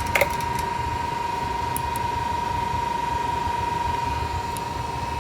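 A 3D printer's cooling fans running steadily, with a constant high whine over the hum. One short click comes right at the start, and a couple of faint ticks come later.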